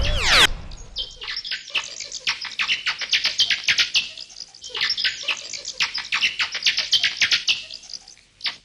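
Birds chirping in dense, rapid, overlapping high-pitched calls. It opens with a loud sweep falling in pitch, about half a second long.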